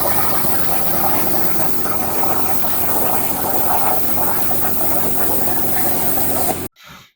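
Loud, steady machine noise: a low hum with a hiss over it, cutting off abruptly near the end.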